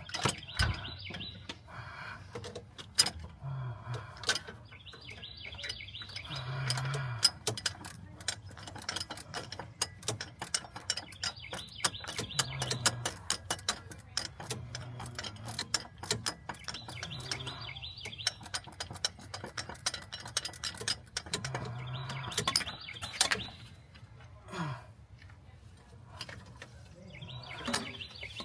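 Hand ratchet wrench clicking rapidly as a bolt is worked loose in repeated strokes, with brief pauses between strokes.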